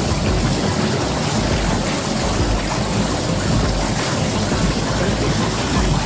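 A mountain stream running high after heavy rain, rushing steadily close by in an even, unbroken hiss of water.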